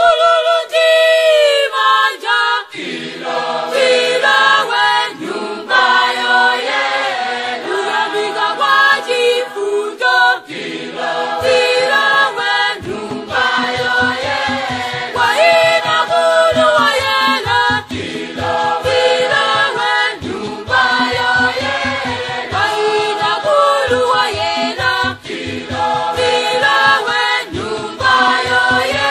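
Group singing: one voice sings alone at first, then several voices join in a few seconds in. From about twelve seconds a steady low beat runs under the singing.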